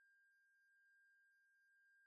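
Very faint, steady pure sine test tone at a fairly high pitch, held unbroken, played as a hearing-test tone.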